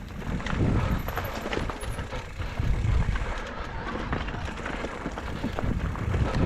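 Electric mountain bike ridden over rough dirt trail under motor assist: a steady low rumble from the tyres with frequent clicks and rattles from the bike.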